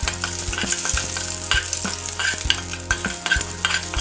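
Garlic, dried red chillies, curry leaves and mustard and fenugreek seeds sizzling and crackling in hot oil in a frying pan while a metal ladle stirs them, knocking and scraping against the pan about twice a second.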